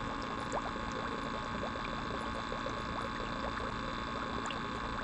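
Small stream trickling steadily, with many small gurgles and drips.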